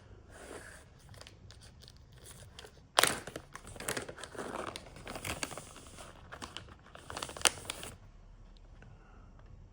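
Crinkly snack packet being handled, rustling and crackling, with a sharp start about three seconds in and a stop about eight seconds in; faint rustles come before.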